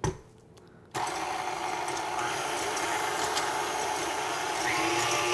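A KitchenAid stand mixer switches on about a second in after a short knock, and its motor runs steadily while the wire whisk beats egg whites in a glass bowl to a foam. The pitch steps up slightly near the end.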